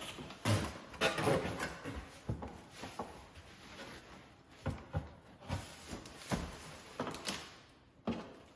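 Cardboard box being handled and opened: a run of irregular knocks, scrapes and rustles that tails off near the end.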